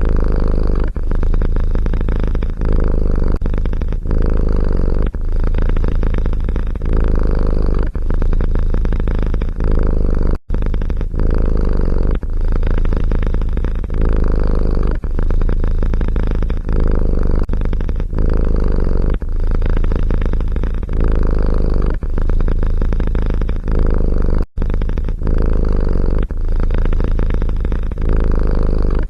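A cat purring loudly and steadily close to the microphone, the purr swelling and easing about once a second with each breath, with two brief cutouts.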